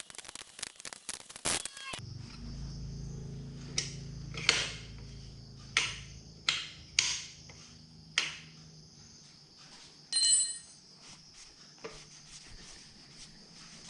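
Scattered clicks and sharp knocks from metal motorcycle parts being handled and fitted during a rebuild, over a steady high insect chirr. A short ringing metallic ping comes about ten seconds in.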